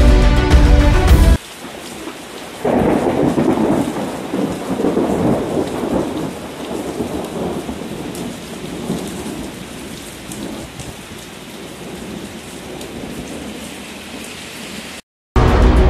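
Heavy rain falling steadily, with a thunderclap about three seconds in that rumbles and slowly fades over the next several seconds. Music is heard briefly at the start and again at the very end.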